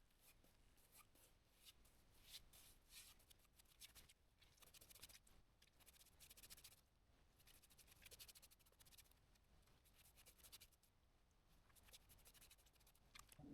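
Faint, scratchy strokes of oil being rubbed onto a wooden beam, repeated irregularly.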